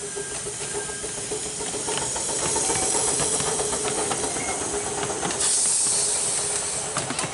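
Miniature steam locomotive hissing steam as it runs past close by, with light clicking of the wheels on the track. A louder rush of steam starts about five and a half seconds in and lasts under a second.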